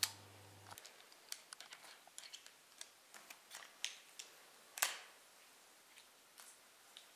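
A scatter of small sharp metallic clicks and taps from handling a Korth Sky Marshal 9 mm Luger revolver, with one louder click a little under five seconds in.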